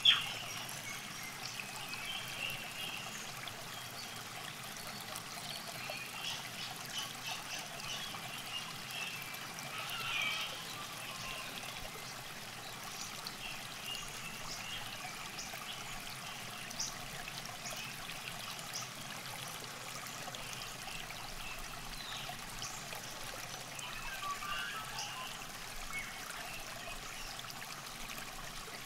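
River water trickling steadily at the bank, with scattered short high chirps throughout and a sharp click at the very start.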